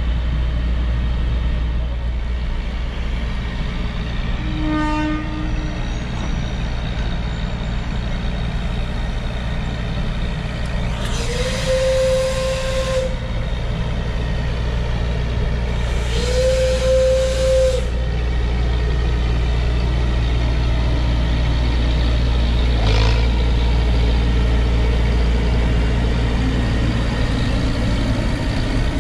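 Two blasts of a Shay geared steam locomotive's steam whistle, each about two seconds long with a hiss of steam, the second a few seconds after the first. They sound over a steady low rumble, and a single knock comes near the end.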